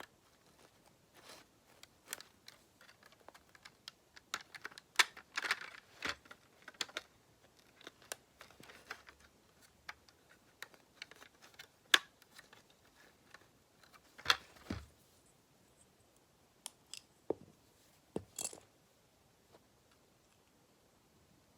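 Plastic Lego bricks being handled: irregular clicks, clacks and short rattles as pieces are pressed on, pulled off and moved around.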